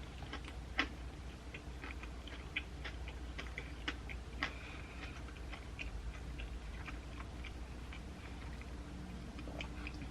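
Close-up chewing of a soft, mayonnaise-laden sub sandwich: irregular wet mouth clicks and smacks, a few sharper ones about a second in and around four seconds in, over a steady low hum.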